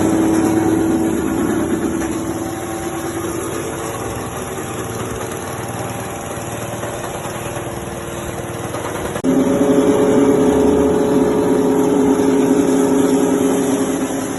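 Type 40 rice husk machine running with a steady mechanical hum. About nine seconds in, the sound jumps suddenly louder to a different steady hum.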